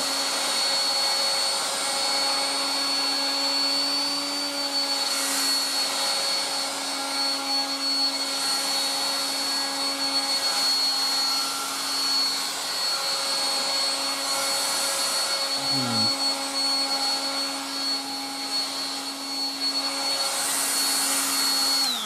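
Vintage 1960s Dateline DLMD hairdryer with a blower fan, running steadily on its single speed: a motor hum and a thin high whine over rushing air, the air swelling a few times as it is moved about. At the very end it is switched off and the whine begins to fall.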